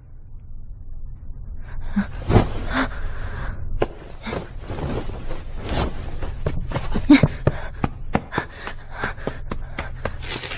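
Light knocks, clicks and rustles of everyday household activity, starting about two seconds in and coming irregularly, over a steady low hum.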